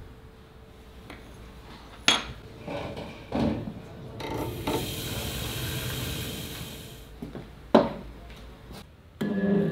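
Metal tools handled on a workbench: a few sharp clinks and knocks, with a stretch of scraping in the middle. Just before the end a small electric motor starts and spins up.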